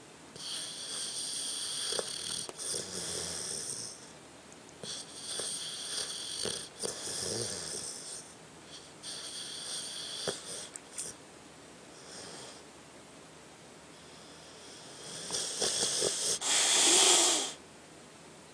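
Sleeping dog snoring: a slow series of long breaths with a high whistle, about four or five in all, the loudest near the end.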